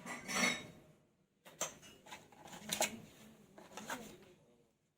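Light clicks and clatter of small laptop parts being handled, with a short rustle at the start and a few separate sharp clicks over the next few seconds.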